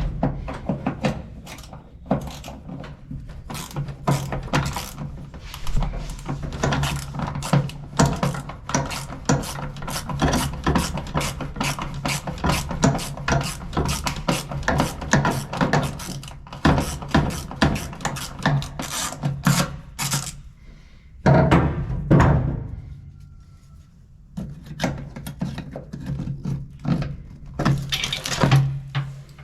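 Background music with a quick, busy beat over a steady bass note, breaking off briefly twice in the second half.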